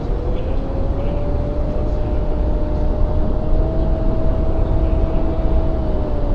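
Electric motor and propeller of a 3D-printed V-turn flying wing humming at a steady pitch on its landing approach, heard from an onboard camera over heavy wind rush on the microphone. The pitch rises slightly about a second in and drops a little near the end.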